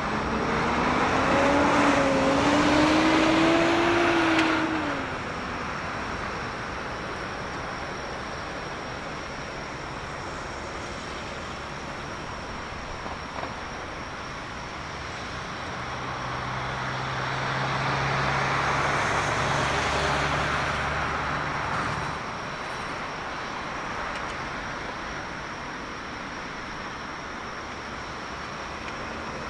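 Boeing 777-300ER's GE90 jet engines at taxi idle, a steady rushing noise. Over it a louder passing sound swells and fades in the first five seconds with a pitch that rises and then falls, and a second rises and fades between about 15 and 22 seconds.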